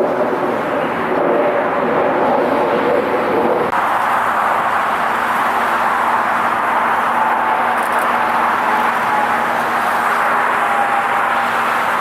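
Jet airliner engines running, a loud steady rushing noise with a hum underneath that drops away about a third of the way in, leaving a faint whining tone.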